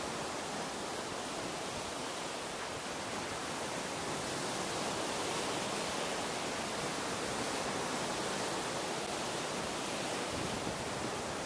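Shallow sea surf foaming and washing over sand around a wooden groyne, a steady rush with no separate wave breaks standing out.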